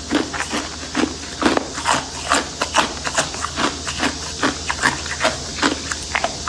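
Chunks of ice crunched and bitten between the teeth: sharp, irregular crackling crunches, about three a second.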